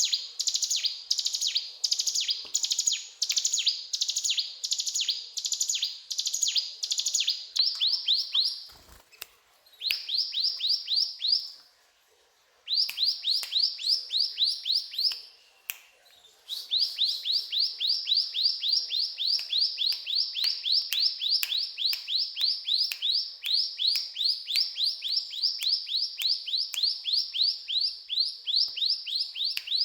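A ciblek gunung (a small Indonesian prinia songbird) singing constantly, the "gacor" song its keepers prize. It delivers long runs of rapid, high, repeated notes, each sliding downward, broken by a few short pauses.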